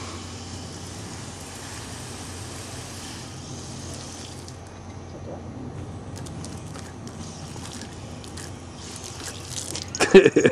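A steady high hiss of outdoor ambience, then faint scattered clicks and rustles. About ten seconds in, a Cairn terrier puppy gives a sudden run of sharp yips, the loudest sounds here.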